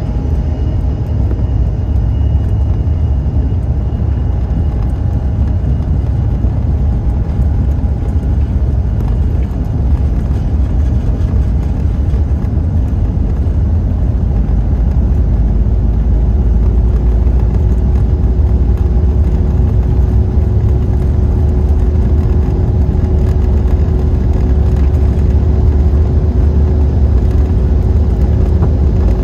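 Cabin noise of a CRJ-700 regional jet on its takeoff roll: a loud, steady, deep rumble from its rear-mounted GE CF34 turbofans at takeoff thrust and the wheels on the runway. About halfway through it grows a little louder and a steady engine hum joins in.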